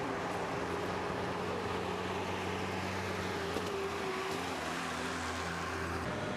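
Steady outdoor noise with the hum of vehicle engines running, a few low steady tones that shift now and then.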